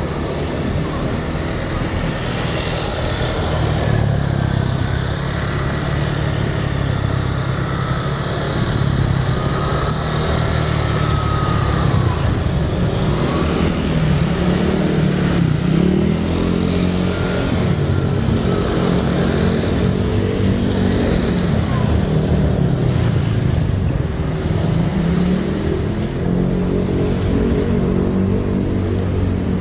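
Small motorcycle and car engines in close street traffic, with an engine's pitch rising and falling several times as riders speed up and slow down.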